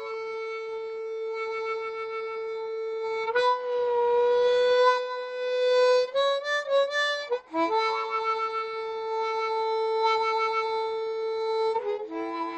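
Harmonica playing long held reedy notes, with a breathy bend upward about three and a half seconds in and a quick warbling run of notes around six to seven seconds. After a short break it holds another long note, then moves to a lower chord near the end.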